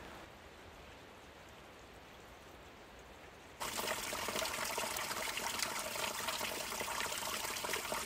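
Faint outdoor background, then the water of a mountain stream rushing, cutting in abruptly about three and a half seconds in and running steadily.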